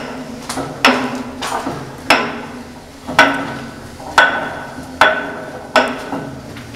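Old hand-operated shell-supply (ammunition hoist) mechanism working: a string of loud metal clanks about a second apart, each with a short ringing tail, as its parts and little doors move.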